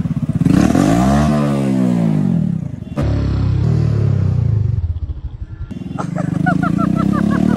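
Hero motorcycle with an aftermarket loud exhaust, ridden at low speed: the revs climb and fall back in the first few seconds, then the engine runs steadily, eases off around five seconds in and picks up again.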